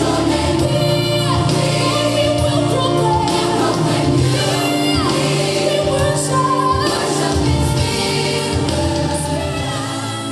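Gospel music: a choir singing over instrumental backing, slowly getting quieter near the end.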